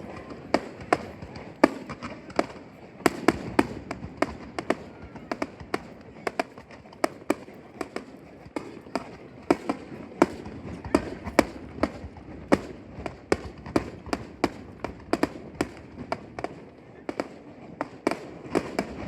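Aerial fireworks going off in quick, irregular succession: sharp bangs and cracks at about two a second, some louder than others, over a steady background rumble.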